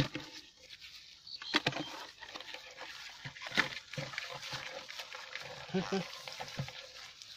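Live rice-field crabs being picked up by hand from a pile and dropped into a plastic bucket: irregular clicks and scratches of crab shells against each other and the plastic, with rustling of dry rice straw.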